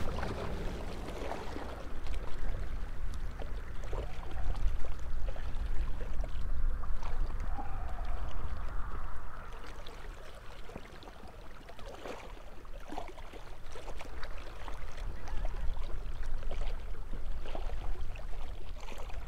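Wind buffeting the microphone in a steady low rumble, over choppy lake water lapping against a boat, with a few light knocks now and then.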